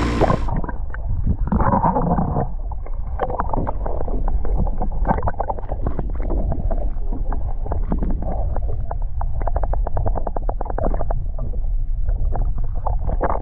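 Muffled sound recorded by a camera held underwater: a low rumble with a dense, irregular patter of clicks and bubbling, and no high end.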